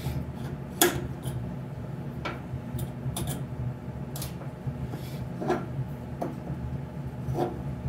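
Scattered clicks and knocks of hands handling the wire-spool compartment of a wire-feed welder, with one sharper click about a second in, over a steady low hum.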